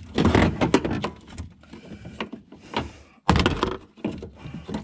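Thick rubber seal around a Volvo 940's fuel pump access opening being pried with a screwdriver and pulled loose by hand. Irregular knocks, scrapes and rubbing of rubber and tools against the sheet-metal floor, with a sharp thump a little past three seconds in after a brief lull.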